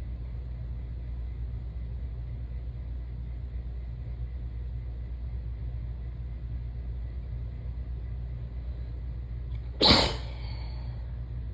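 A single sharp human sneeze about ten seconds in, from someone coming down with a cold, over a steady low hum.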